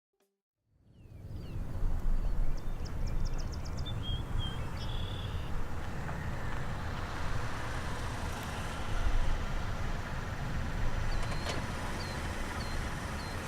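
Steady outdoor background noise with a heavy low rumble, like road traffic, fading in after a second of silence, with a few short high chirps over it.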